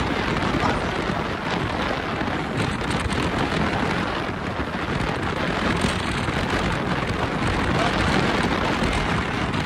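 Steady rushing wind noise buffeting the microphone on a moving motorcycle, with low road rumble underneath.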